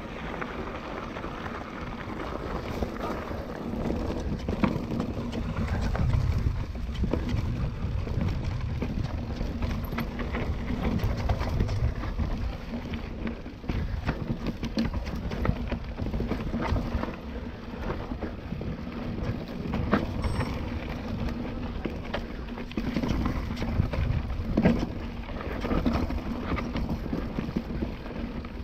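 Mountain bike ridden over a dirt and gravel forest trail: tyres rolling and crunching, with frequent knocks and rattles of the bike over bumps and roots, and wind rushing on the microphone.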